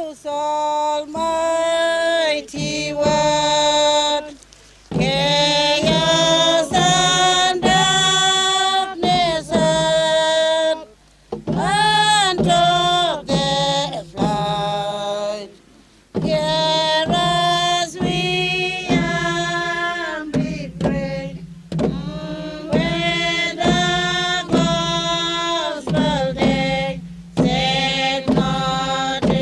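A Torres Strait Islander group singing a chant in unison, in long held phrases that break off briefly every few seconds.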